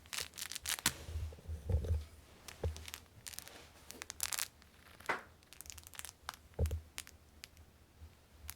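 Toy packaging being handled and torn open, in irregular crinkles, rustles and crackles with a few soft thumps.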